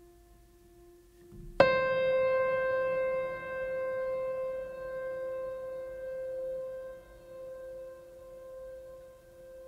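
Soft background music: a single keyboard note is struck about a second and a half in and rings on, slowly fading, over a faint lower held tone.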